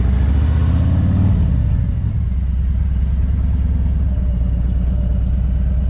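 Motorcycle engine running at low speed during slow, tight parking-lot turns. The revs rise slightly in the first second or so, then drop back to a steady low idle-like note.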